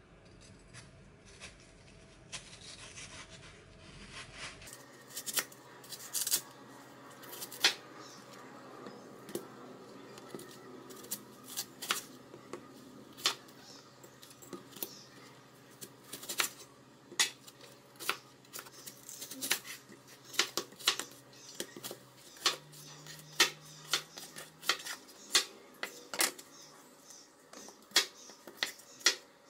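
Kitchen knife cutting through watermelon and knocking on a wooden chopping board: irregular sharp knocks, one or two a second, from about five seconds in.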